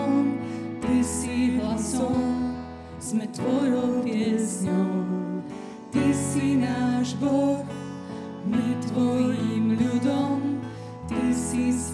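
Live worship band playing a slow gospel song: sustained chords that change every two to three seconds, with guitar and a singing voice over them.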